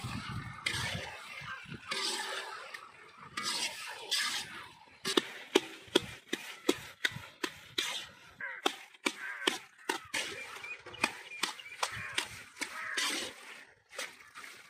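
A spatula scraping and stirring through mashed goat brain in a large wok. From about five seconds in, the spatula knocks against the pan in sharp clicks, about two a second.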